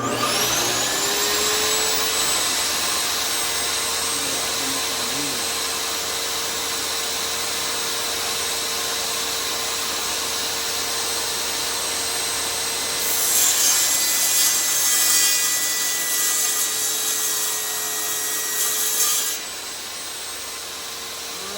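Electric power saw starting up and running at a steady whine, cutting a piece of stag antler: a louder rasping cut from a little past halfway for about six seconds, then the saw running free again.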